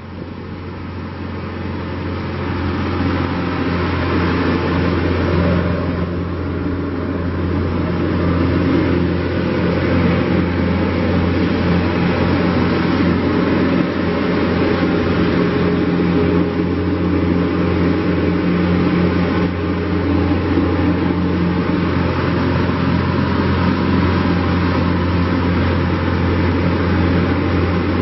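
New Holland Boomer 41 compact tractor's diesel engine running. It grows louder over the first several seconds, then runs steadily.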